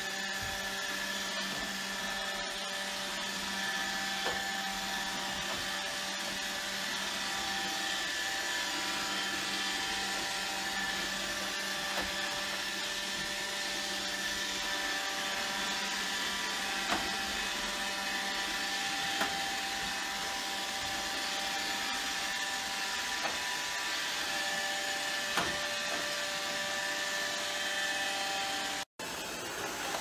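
iRobot Roomba robot vacuum running steadily over a hardwood floor: an even motor hum with several steady whining tones and a hiss of suction, broken by a few light ticks. The sound drops out for an instant near the end.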